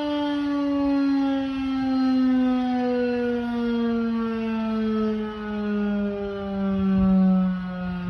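Federal Signal 2001-130 electromechanical siren winding down after its alert test signal: its single tone falls slowly and steadily in pitch, swelling and fading in loudness every couple of seconds.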